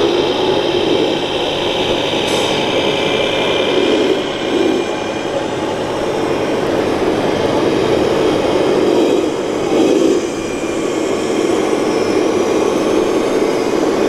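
1/14-scale RC trucks driving, a steady mechanical hum of their drives with a high whine that is strongest in the first few seconds and fades after about four seconds.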